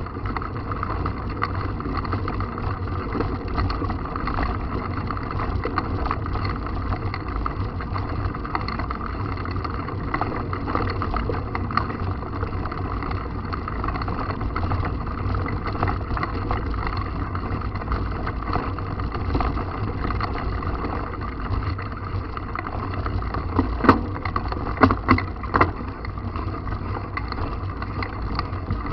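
Mountain bike on the move: a continuous rough rumble of tyres on a dirt trail with wind buffeting, and a few sharp knocks or rattles near the end.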